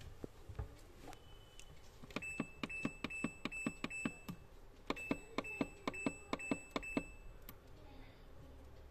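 Short electronic beeps, each with a sharp click, in two quick runs of about seven at roughly three a second, with a pause of under a second between the runs and a single short beep before them, like an LG refrigerator's control-panel buttons being pressed.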